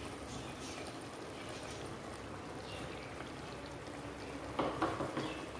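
Cooking oil poured from a plastic bowl into a clay pot of simmering chicken masala, with soft pouring and bubbling. A short louder sound comes near the end.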